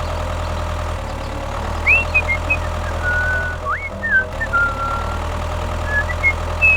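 Small mini tractor engine idling steadily, with short rising whistle-like chirps over it from about two seconds in.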